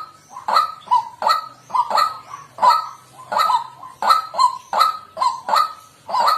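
White-breasted waterhen calling: a steady run of short, harsh, repeated 'kwak' notes, about two a second, often coming in pairs.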